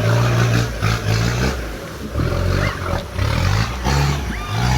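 4x4 off-road race rig's engine revving hard in repeated bursts, its pitch jumping up and down between blips.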